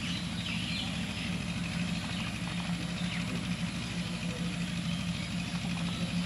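Steady low hum of an idling engine, unchanging in level, with faint brief chirps above it.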